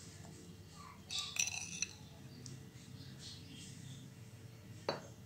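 Spoon clinking against a bowl while a spice marinade is mixed: a few faint ringing clinks about a second in, then one sharp tap near the end.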